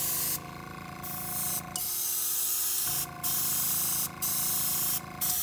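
Larger, industrial-type airbrush spraying thin paint in short hissing bursts of about a second each, with brief breaks between them as the trigger is let off, over a steady hum.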